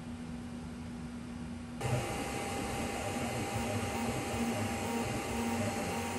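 3D printer printing: stepper motors giving short steady tones that switch on and off and change pitch over a steady hiss. The sound gets abruptly louder about two seconds in.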